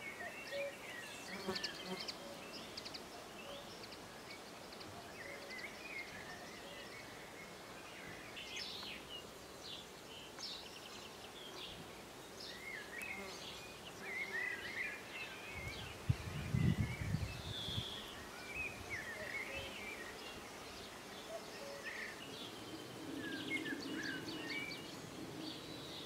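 Small songbirds chirping and singing, many short twittering calls scattered throughout. A brief low rumble comes a little past halfway, and a low buzz or hum sits under the birds near the end.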